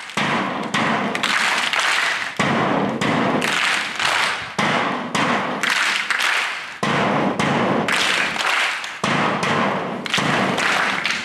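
Bass drum on a stand beaten repeatedly to keep time for a mass PT drill, in a pattern of beats that repeats about every two seconds.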